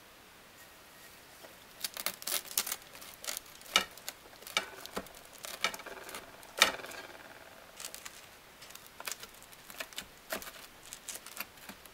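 Toasted flatbread pizza crust crunching and crackling as a long rocker-style cutting blade is pressed down through it onto a wooden board. It is an irregular run of sharp crackles and clicks, starting about two seconds in.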